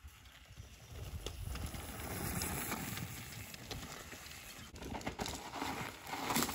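Mountain bike rolling over a dry dirt trail, its tyres crunching on the ground, with a few sharp knocks and rattles as it goes over bumps.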